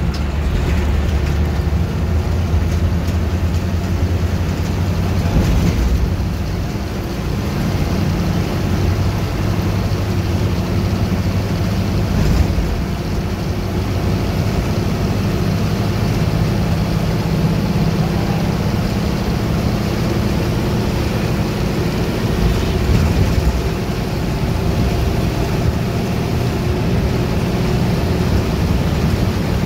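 Bus diesel engine running at cruising speed, heard from inside the cabin: a steady low drone with road and tyre noise. It eases off briefly about seven seconds in.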